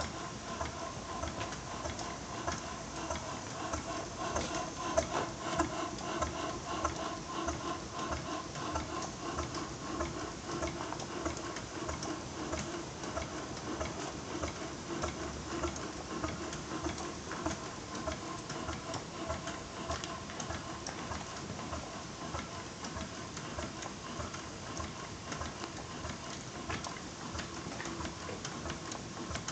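A 4-inch scale Burrell double-crank compound road locomotive running, its motion and valve gear clicking and clattering in a fast, steady rhythm over a steady hum. There is one louder click about five seconds in.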